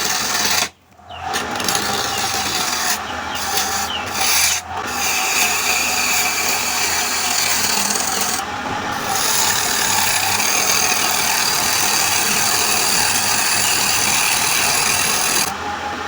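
A tool scraping and cutting wood spinning on a wood lathe, a steady rasping noise with a faint steady motor tone underneath. It breaks off sharply about a second in and again briefly near five seconds, then carries on.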